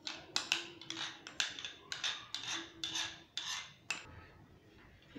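A utensil scraping cocoa cake batter out of a ceramic bowl: a quick run of short scrapes, two or three a second, that stops about four seconds in.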